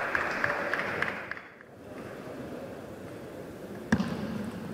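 Light applause with individual claps, cut off abruptly about a second and a half in, then quiet arena ambience and a single sharp knock near the end.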